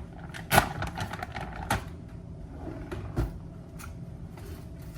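Kitchen clatter while food is being prepared: a few sharp knocks and clicks of utensils, pans or containers being handled. The loudest knock comes about half a second in, with others near two and three seconds.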